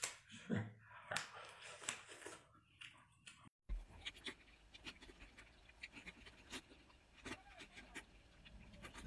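Faint eating sounds: scattered short clicks and cracks as crab shell is pulled apart. After a sudden cut, soft mouth clicks and smacks of chewing over a low steady hum.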